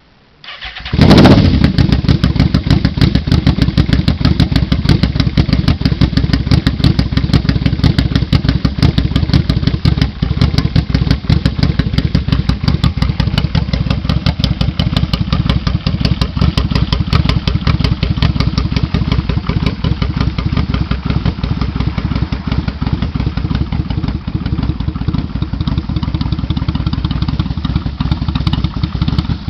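2000 Yamaha V-Max 1200's V4 engine, breathing through a 4-into-4 exhaust system, starts about a second in and settles into a steady idle.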